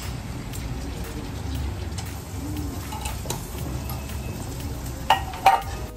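Sliced onions frying and sizzling in mustard oil in a large karahi, a steady sizzle with a low rumble under it. Near the end come two sharp clicks about half a second apart.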